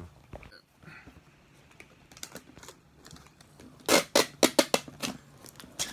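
Packing tape pulled off its roll in a quick run of about six loud, sharp rips lasting a little over a second, then one more rip, as a small cardboard box is taped shut. Soft handling rustles come before the rips.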